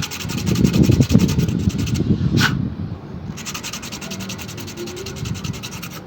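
Sandpaper rubbed quickly back and forth on PVC pipe, roughening it so the PVC cement will grip. The strokes come in two runs, broken about two seconds in by a single sharp click.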